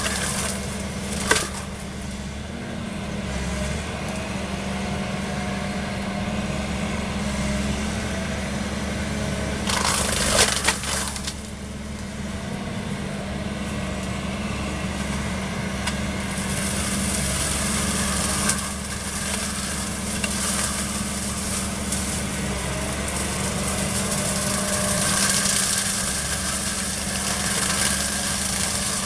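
Volvo wheeled excavator running steadily while its boom-mounted flail mower head chews through hedge branches, with sharp cracks of splintering wood about a second in and again around ten seconds in.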